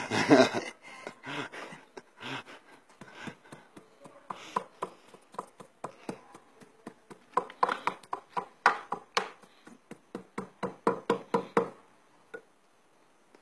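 Pestle pounding animal fat and oil in a mortar to work them into an oar grease, a steady run of dull knocks about two to three a second. The strokes grow louder about halfway through and stop just before the end.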